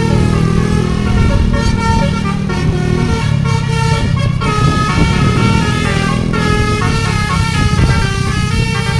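Telolet basuri musical bus air horn playing a tune non-stop, several notes sounding together and changing pitch in quick steps, over the low rumble of the bus.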